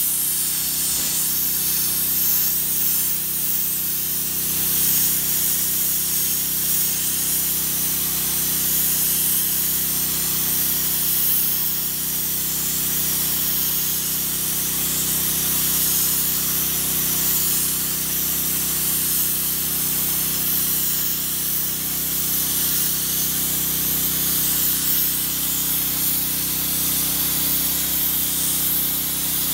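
IBIX Trilogy 28 low-pressure abrasive blast gun spraying 120-mesh garnet grit at brickwork at 2 bar: a steady, even hiss that keeps going without a break, over a steady low hum.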